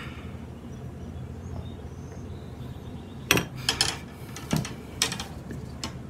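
Several sharp clinks and clatters of metal hand tools being picked up off a wooden workbench and set against a plastic spincast reel, bunched together a little past the middle, over a low steady hum.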